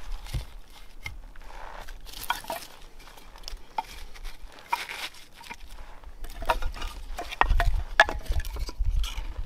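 Split pieces of firewood being set down and shifted against each other by hand, giving a string of light wooden knocks and clacks with rustling of dry leaves between them. A low rumble builds over the last couple of seconds.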